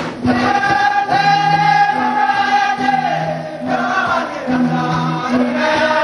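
Music with a choir singing: a long held note that slides down about halfway through, over a repeating two-note bass line.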